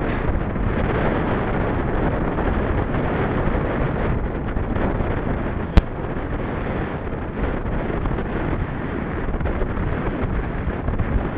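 Steady wind noise buffeting the microphone, as when riding a bicycle, with a single sharp click about halfway through.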